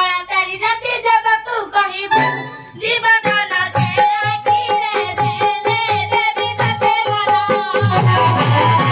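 A woman singing an Odia Danda Nacha folk song through a microphone and loudspeaker. Rhythmic drumming comes in about four seconds in, and the instrumental accompaniment fills out into a steady beat near the end.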